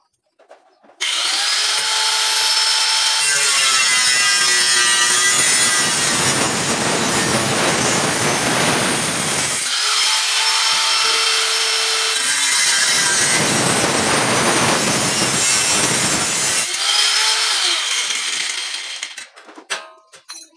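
Electric angle grinder with a cut-off disc starting up, then cutting into the light-steel (baja ringan) frame in two long, harsh cuts of about five seconds each, the disc whining as it spins free between them. The grinder winds down and stops near the end.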